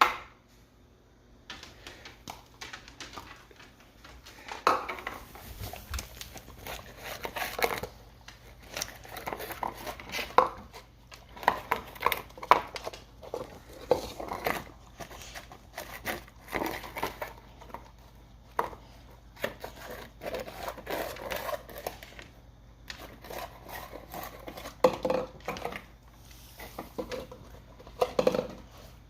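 A dog licking a dish clean, with irregular runs of short licks and the dish clattering now and then.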